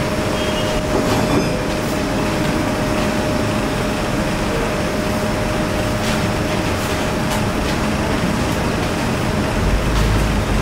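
Steady, loud workshop machinery noise with a constant hum and a few scattered clicks.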